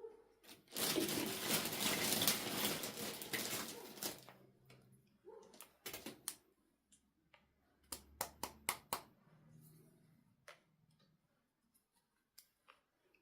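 Packaging being handled: a few seconds of dense rustling and tearing, then a scatter of sharp clicks and taps.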